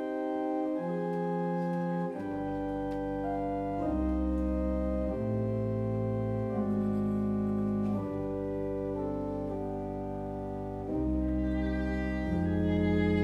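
Church organ playing a slow introduction in held chords that change every second or so, with a deep pedal bass line coming in about two seconds in.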